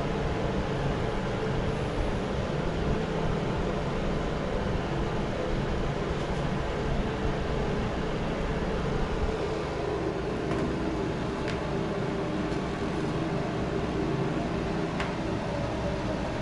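Mondial A-08 electric fan heater running: a steady fan whoosh with a low hum. A few faint clicks in the second half as the unit is gripped and turned round.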